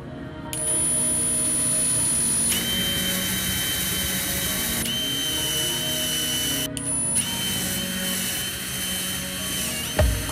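Electric drill with a twist bit boring through a wooden board, its motor whining steadily. The drill briefly lets up about two-thirds of the way through, then runs on.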